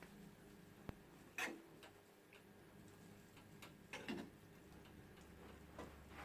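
Near silence with a few faint, scattered clicks and light knocks of dishes and serving utensils; the loudest comes about a second and a half in, another about four seconds in.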